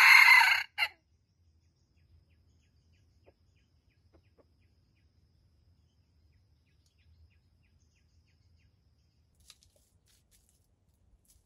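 Red junglefowl rooster finishing a crow in the first second, ending in a short clipped final note; after that only a few faint ticks.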